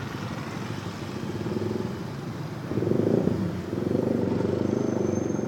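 A bus engine running with a steady, rhythmic throb; it swells louder about three seconds in, as if revved or pulling away.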